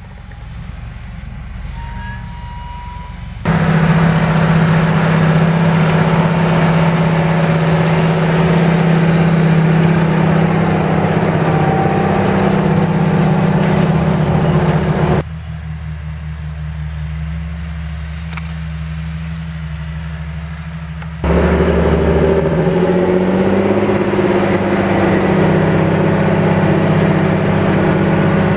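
John Deere 8430 tractor's six-cylinder diesel engine running under load while pulling a Köckerling Allrounder 1200 cultivator, a steady engine drone. It is quieter for the first few seconds, suddenly loud from about 3.5 s, drops to a lower, quieter hum about halfway through, and jumps back to loud about 21 s in.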